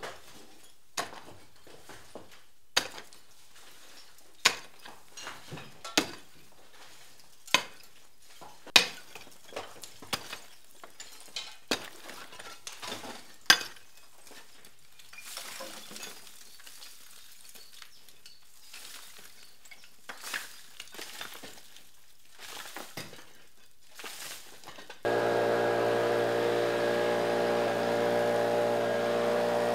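A heavy long-handled tool striking old brickwork, about one blow every second and a half, with bricks and rubble clattering down, then lighter knocks and scraping. About 25 seconds in, a blower engine starts suddenly and runs steadily, blowing dust and debris off the masonry.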